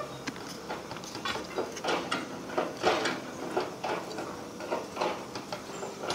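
Hand hammer striking a chisel on a sandstone block, a quick run of sharp taps about three a second as the stone is chipped and split by hand.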